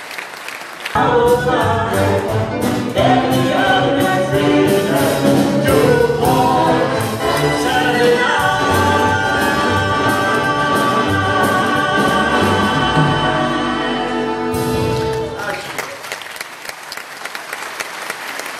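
Big band with a string section strikes up suddenly about a second in and plays a short, loud ensemble passage that ends about 15 seconds in. Audience applause is heard at the start and again after the music stops.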